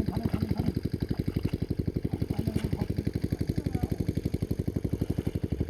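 Small engine running steadily at a constant speed, with a rapid, even chugging.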